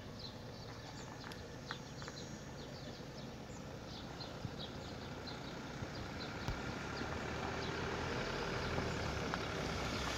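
Fighting bulls eating hay at a metal feeder, with scattered soft crunches and knocks and short high chirps from small birds. A steady engine hum grows slowly louder through the second half.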